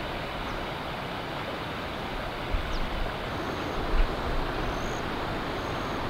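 Steady rushing of a shallow mountain stream running over riffles, with low wind buffeting on the microphone.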